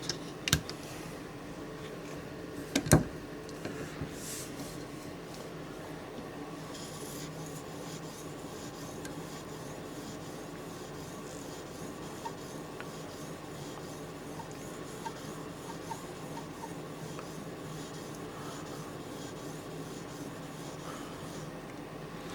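An 800-grit sharpening stone rubbing along the steel edge of an OTF knife's tanto blade: a steady, quiet rasping. A sharp click about three seconds in, and a smaller one just before it.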